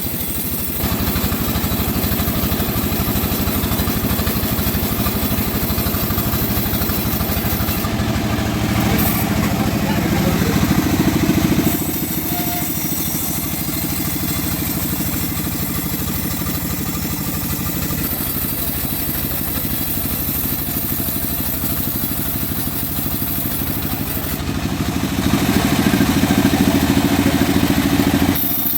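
Engine-driven homemade sawmill for cutting mahogany logs, running steadily. It grows louder for a few seconds twice, about eight seconds in and again near the end.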